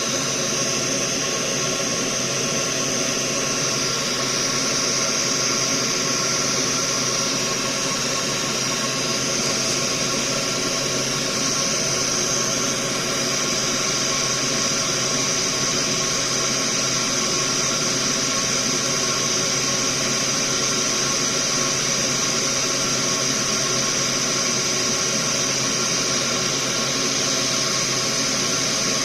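A small electric fan running steadily: an even whir with a hiss and several fixed hum tones, unchanging throughout.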